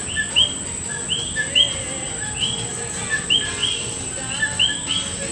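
Birds chirping over and over in short, arching calls, with a steady high-pitched whine underneath.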